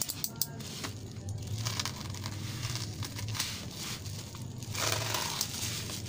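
Black plastic wrapping of a shipping parcel crinkling and crackling irregularly as it is gripped and opened by hand.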